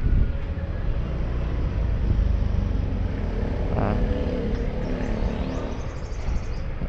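Street traffic noise: a steady low rumble of passing vehicles, with a brief higher-pitched sound about four seconds in.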